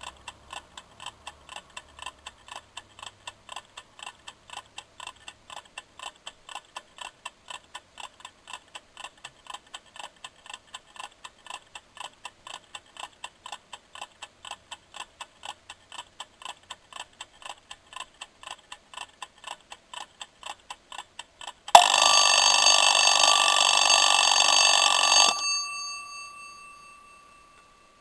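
Kitchen timer ticking steadily, about three ticks a second, counting down. About 22 seconds in it reaches zero and its bell rings loudly for about three and a half seconds, then stops abruptly and the bell's tone fades out.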